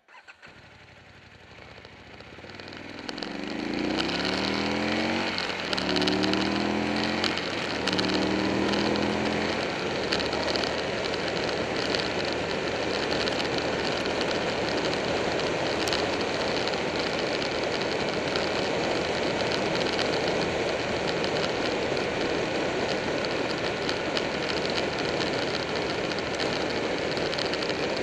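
Buell 1125R's V-twin pulling away and accelerating up through three gears, the pitch rising and then dropping at each shift. It then settles into a steady cruise buried in heavy wind and road noise.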